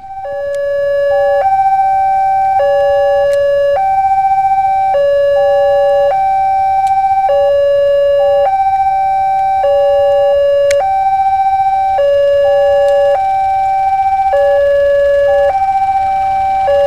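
Electronic level-crossing warning alarm sounding a repeating high-low two-tone chime, the pattern cycling about every two and a half seconds, as a train approaches the crossing.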